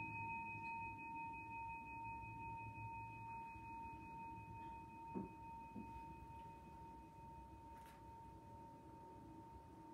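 A singing bowl ringing on after a strike, two steady tones, one lower and one higher, slowly fading away. Two faint knocks come about five seconds in.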